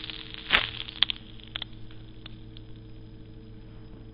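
Crackling and popping from an overheating flexible circuit strip as it smokes and blisters. One loud pop comes about half a second in, then scattered smaller crackles that thin out, over a faint steady hum.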